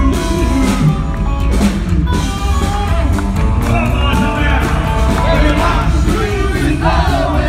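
Rockabilly band playing live and loud: slapped upright double bass, electric guitar and drums, heard from the audience in a large hall.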